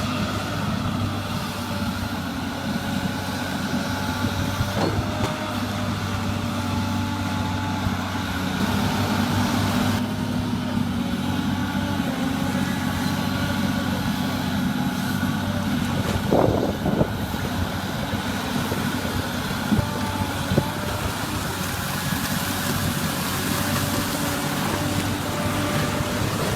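Amphibious excavator's diesel engine running steadily, with a few short knocks from the machine.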